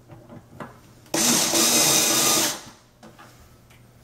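Small cordless screwdriver running for about a second and a half, driving a screw through a metal drawer rail into the side panel. The screw is only being started, not tightened all the way.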